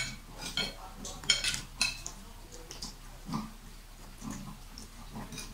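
Metal fork and spoon clinking and scraping against ceramic plates of noodles during fast eating, with a run of sharp clinks in the first two seconds, then quieter eating noises.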